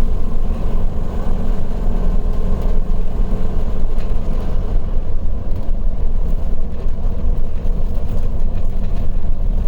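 Steady low rumble of a vehicle driving on a winding mountain road, engine and tyre noise heard from inside the cab.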